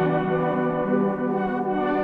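Background music: slow ambient music with sustained, ringing tones.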